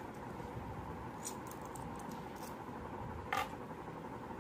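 Stainless-steel 2-rupee coins clicking faintly against each other as they are shifted between the fingers, with one sharper clink about three seconds in, over a steady room hum.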